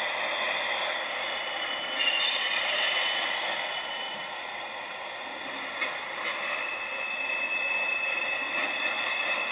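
Empty rail-train flatcars of a freight train rolling slowly past, the wheels squealing in high thin tones, loudest about two seconds in, with a steady squeal again near the end.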